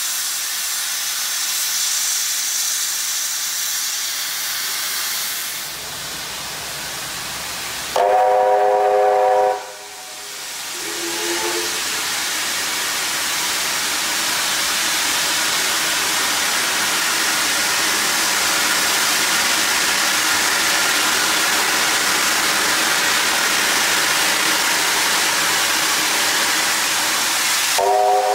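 Steam locomotive 3801 venting steam from its cylinder drain cocks with a loud, steady hiss. About eight seconds in, its whistle gives a blast of several notes at once, followed by a short second toot a little later. The whistle starts again right at the end.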